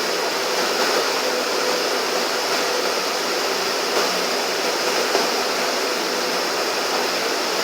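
Steady whooshing noise with a faint steady hum, unchanging throughout.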